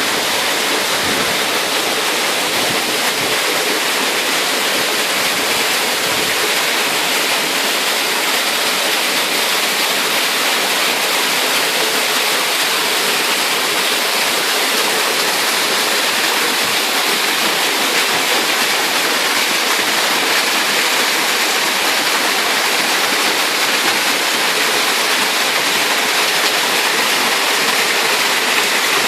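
Waterfall rushing steadily: an unbroken hiss of falling water with little deep rumble.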